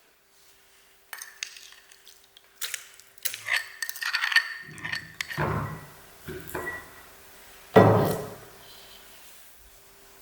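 Kitchen dishes and utensils clinking and knocking during baking: a run of light clinks, then heavier thuds, the loudest about eight seconds in.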